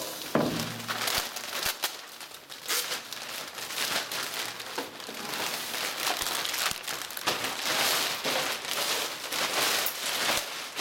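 Plastic wrapping crinkling and rustling with dense crackles as a large wrapped part is handled, with a few light knocks in the first couple of seconds.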